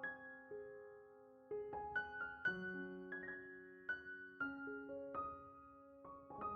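Slow, soft solo piano music: single notes and chords struck a few at a time and left to ring.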